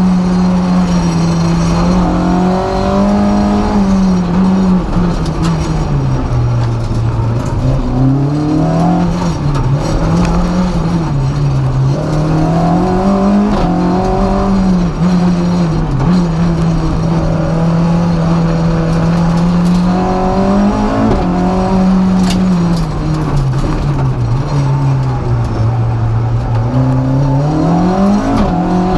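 Renault Clio F2000 rally car's 2-litre four-cylinder engine driven hard on a stage. The revs climb, are held, then drop as it shifts gear, over and over, with longer stretches held at high revs.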